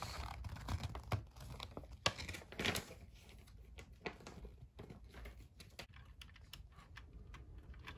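Faint handling noises: paper rustling, then scattered light clicks and taps as the HO-scale model well cars are picked up and set on the track.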